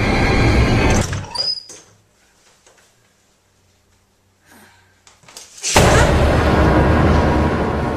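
A loud, rumbling horror-film score cuts off about a second in. A doorknob clicks and the door opens with a short high squeak, and a few seconds of quiet follow. Then a sudden loud jump-scare burst of rumbling score hits near the end.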